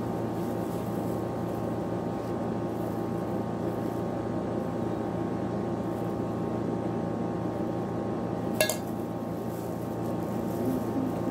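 Steady machine hum with several fixed pitches, and a single sharp clink of a kitchen utensil about eight and a half seconds in.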